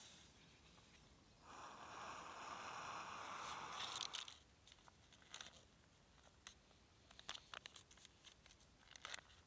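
An Army ration pouch (boil-in-bag chicken curry) being torn open: a rustling, crinkling rip of about three seconds that grows louder and stops suddenly. Then come scattered light clicks and crinkles as the pouch is handled.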